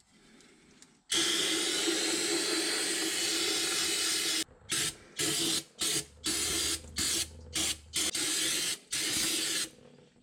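Aerosol can of brake cleaner spraying into an open differential housing: one continuous spray of about three seconds, then a run of about eight short bursts.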